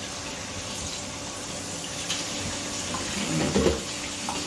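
Kitchen tap running into a stainless-steel bowl of defrosted prawns in a steel sink, with water splashing as hands rinse the prawns. A brief pitched sound rises over the water about three and a half seconds in.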